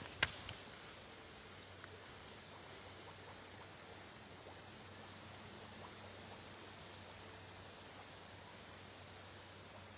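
Steady, high-pitched chorus of insects droning without a break. One sharp click sounds about a quarter second in, as the phone camera is handled.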